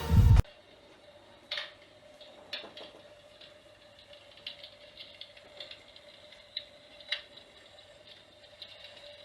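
Faint, irregular crackling clicks over a steady low hum, like an electric fireplace's crackling-fire sound effect running. A burst of music cuts off at the very start.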